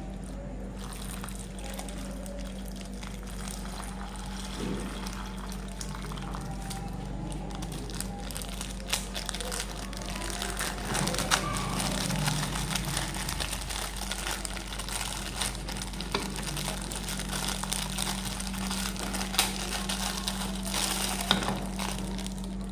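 Plastic packaging crinkling and rustling, with small clicks and taps from handling, under a steady low hum.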